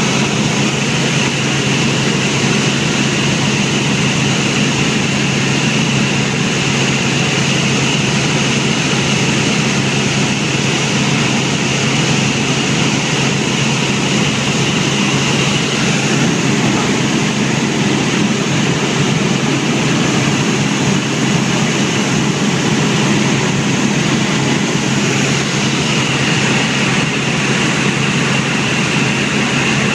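Helicopter in flight, its engine and rotor giving a loud, steady drone that does not change.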